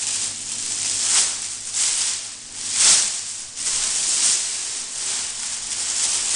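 Large heat-shrinkable plastic cooking bag crinkling and rustling as a ham is worked down into it by gloved hands. The rustling comes in irregular swells, loudest about three seconds in.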